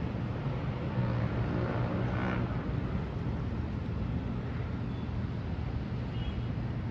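Road traffic: a steady low engine hum under the noise of passing vehicles, with one vehicle swelling louder about two seconds in.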